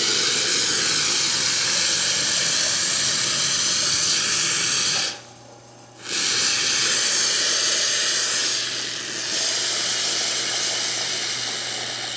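Rocket espresso machine's hot water tap dispensing, a loud steady hiss of water and steam spitting from the spout. The hiss cuts off about five seconds in, starts again a second later over a steady low hum, and tapers off near the end.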